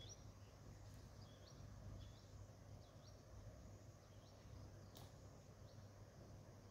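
Near silence: faint open-air ambience with small bird chirps recurring about once a second, a low steady hum, and a single sharp click about five seconds in.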